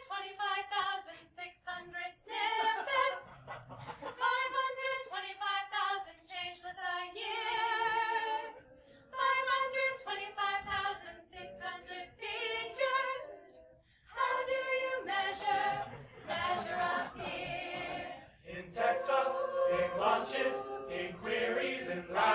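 Mixed-voice a cappella group singing in harmony, with a short break about fourteen seconds in.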